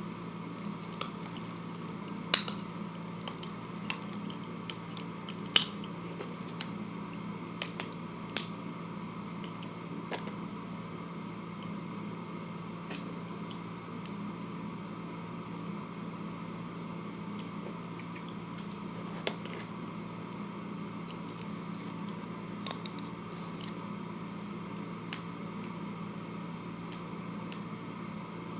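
Scattered clicks and clinks of eating utensils against a dish, most of them in the first ten seconds, over a steady room hum.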